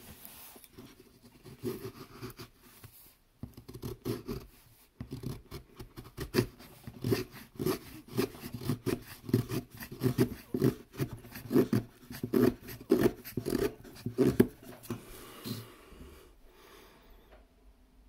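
SOG Flashback Mini folding knife's AUS-8 stainless blade shaving curls off a stick of dry wood to make a feather stick: a run of short scraping strokes, about two a second, that starts sparse, comes thick and steady through the middle and dies away a few seconds before the end.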